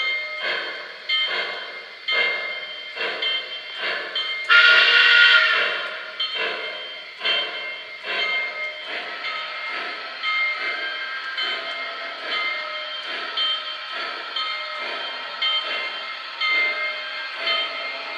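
2-8-2 model steam locomotive chuffing steadily, about two beats a second, with a whistle blast about four and a half seconds in that lasts about a second and a half and is the loudest sound.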